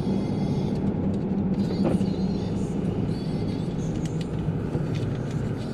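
Panel-van campervan driving at low speed, a steady low engine hum with tyre and road noise, heard from inside the cab; the engine note drops a little about halfway through as the van slows.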